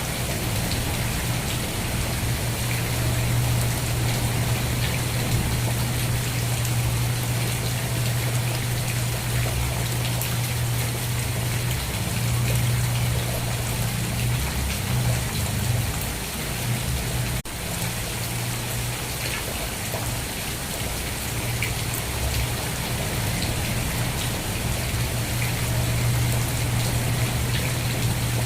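Steady rain falling, with scattered individual drop ticks over a constant low rumble. There is a brief dropout a little past halfway.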